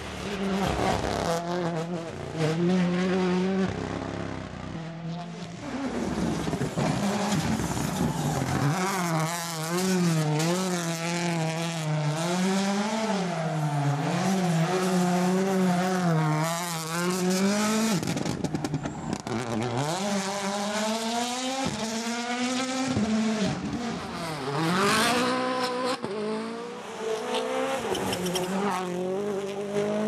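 WRC Rally1 cars with turbocharged 1.6-litre four-cylinder hybrid engines, driving a tarmac stage one after another. The engine note keeps rising and falling with throttle and gear changes through the corners, and there are a few sharp climbs in revs in the second half as cars accelerate past.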